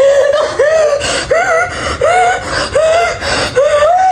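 A young woman crying for joy in short, high-pitched wails that rise and fall, about two a second, with breaths between.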